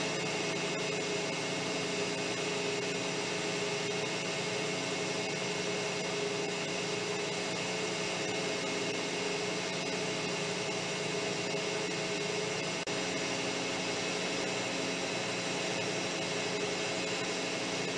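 Metal lathe running at a slow spindle speed, a steady motor and gear hum with several even tones.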